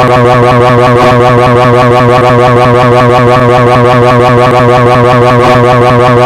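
A cartoon character's 'jrarararara' scream sound effect: a rapid rolling trill held on one pitch, with a fast, even warble. It is very loud and distorted, and it runs on without a break.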